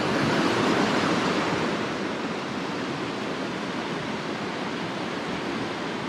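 Mountain stream water rushing over rocks in a shallow riffle, a steady rush that is a little louder in the first couple of seconds.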